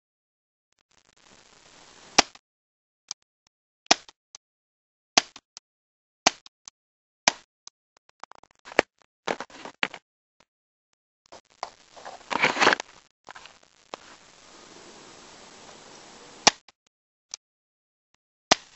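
A vintage Splatmaster Rapide double-action paintball pistol firing a string of sharp shots, roughly a second or so apart and unevenly timed. Near the middle the shots stop for a few seconds of denser clattering noise, and they pick up again near the end.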